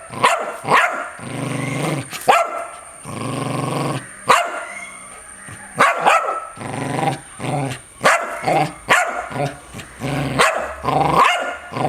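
A dog barking in sharp single barks, about nine spread through the stretch, alternating with low, drawn-out growls lasting about a second each.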